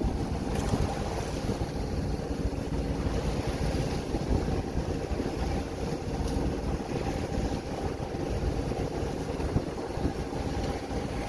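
Sailing yacht's inboard engine running steadily under way, with wind buffeting the microphone.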